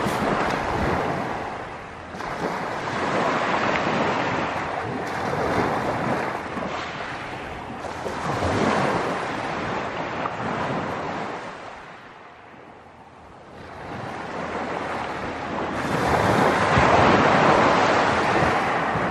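Gentle Black Sea waves breaking and washing over a pebble beach, coming in swells that rise and fall, with a quieter lull about two-thirds of the way through and the biggest surge near the end.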